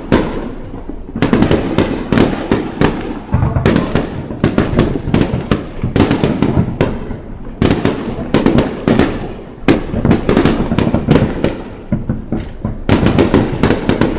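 Fireworks display: shells bursting in rapid volleys of sharp crackles and bangs, coming in clusters of a couple of seconds with brief lulls between them.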